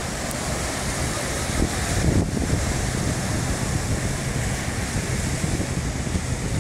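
Small waves washing up on a sandy beach in a steady hiss of surf, with wind buffeting the microphone, most strongly about two seconds in.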